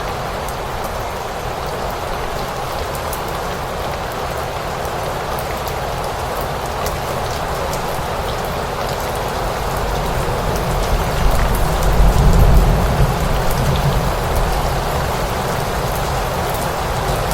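Steady rain falling, with scattered drop ticks. About two-thirds of the way through, a low rumble swells and then fades.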